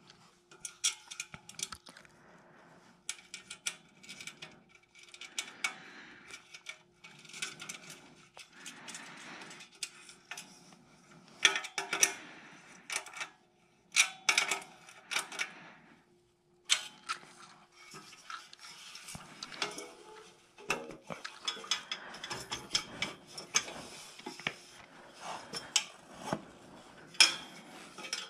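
Aluminium tubes, frame rails and small bolts of a fishing cart being handled during assembly: irregular metallic clinks, taps and rubbing as parts are fitted together.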